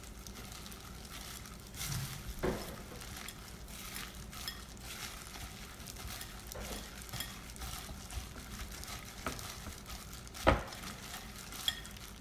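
Gloved hands mixing sticky cooked rice, tofu and seaweed in a glass bowl: a soft, continuous crackle and squish of plastic gloves working through the rice. A few light knocks, and one sharper thump near the end.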